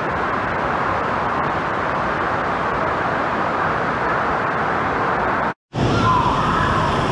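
Steady rush of water running down a water slide's flume, with the echoing hubbub of an indoor water park. About five and a half seconds in the sound drops out for a moment, and a similar noisy pool hubbub with faint voices follows.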